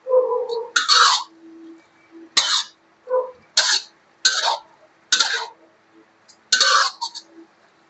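Metal spatula scraping and tossing shredded bamboo shoots in a wok: about six short, sharp scrapes, roughly one a second.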